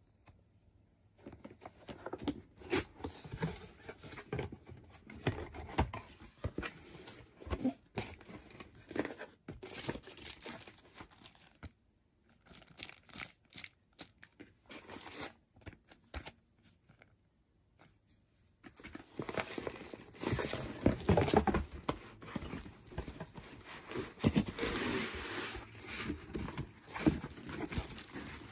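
Crinkling and rustling of handled material, with scattered taps and clicks: sparse at first, then busier and louder about two-thirds of the way through.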